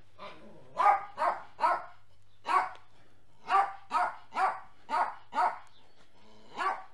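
A dog barking repeatedly: about eleven short, sharp barks, coming in quick runs of two to four with brief pauses between.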